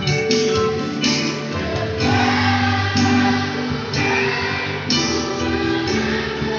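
Children's choir singing a Christian praise song together, in held notes that change about once a second.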